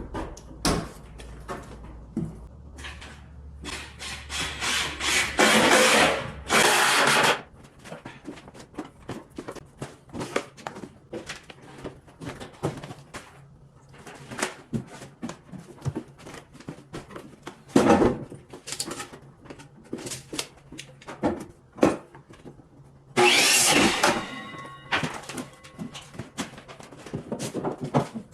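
Job-site renovation work: scattered knocks and clatter of tools and lumber, with two louder noisy stretches of a few seconds, about four and about twenty-three seconds in.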